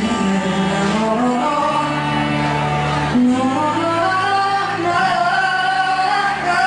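Live pop ballad: band accompaniment under a singer holding long notes that step up and down in pitch.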